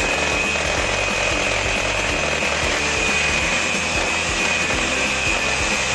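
Electric beater running steadily, whisking eggs with powdered sugar into cake batter, its motor giving a steady high whine, with background music.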